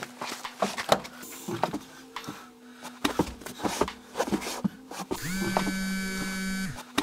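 Things being rummaged through in a car boot: repeated knocks, clicks and rustles. About five seconds in, a steady buzzing tone starts and holds for about a second and a half.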